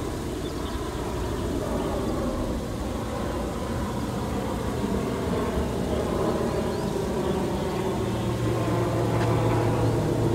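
Aircraft engine noise: a steady hum with several held tones, growing a little louder near the end.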